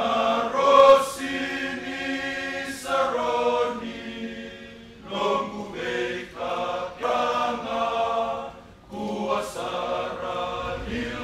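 Choir of Fijian Navy sailors, men's voices singing together in long held notes, in phrases with short breaks between them.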